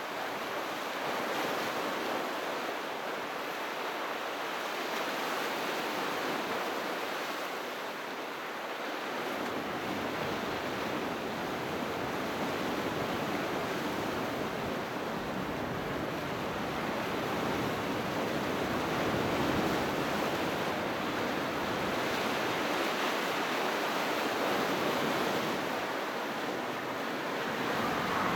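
Sea surf washing onto the shore: a steady rushing noise that slowly swells and eases as the waves come in.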